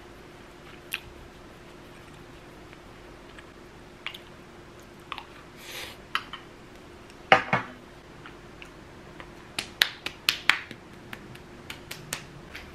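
A spoon clinking and scraping against a ceramic bowl during eating, heard as scattered small clicks and taps with a louder clatter about seven seconds in and a quick run of clicks near the end. A faint steady hum sits underneath.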